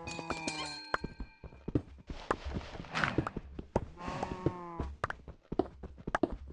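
A farm animal bleating twice, each call about a second long, with many short clicks and knocks around it.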